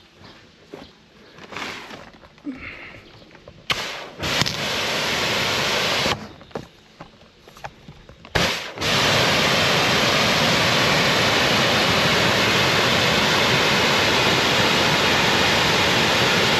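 Kärcher hot-water pressure washer spraying water from its lance in a wide mist: a short burst about four seconds in, then after a sharp click a steady hiss of spray from about nine seconds on. Cold water is being run through the machine to cool it after the heater has been used.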